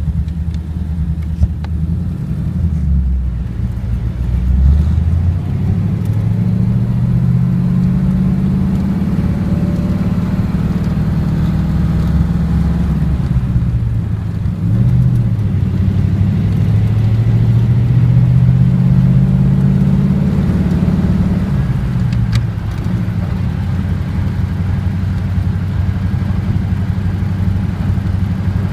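1939 Ford coupe's flathead V8 running while the car is driven. The engine note rises about six seconds in, dips briefly near the middle, rises again and falls back a little after twenty seconds, then runs steady.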